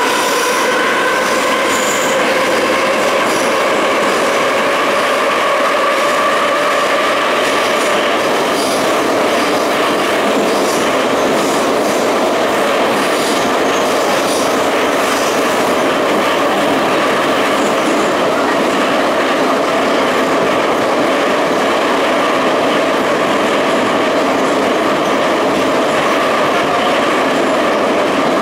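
Ezh3 metro car heard from inside while running between stations: a steady rumble of wheels on rail with a whine that rises slightly in pitch over the first few seconds and then holds, and faint clicks from the rails.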